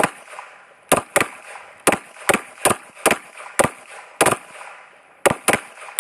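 Pistol shots from several shooters firing on a range line, about ten sharp shots at uneven intervals, some less than half a second apart, each with a short echo.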